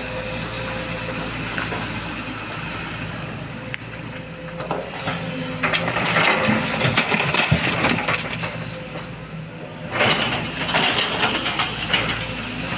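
Sany SY225C excavator's diesel engine running steadily. Loose stone clatters and grinds in heavy bursts of crackling at about six seconds and again from about ten seconds, as the machine loads rock.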